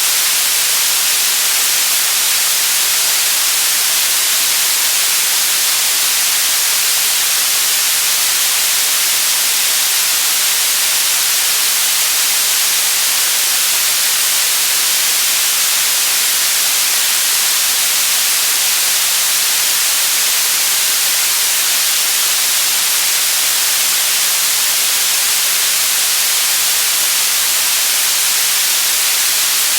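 Steady, loud electronic white noise: an even hiss with no change, strongest in the highs.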